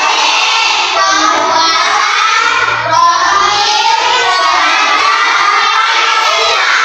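A class of young children chanting loudly together in unison, clapping along, with a short break about three seconds in.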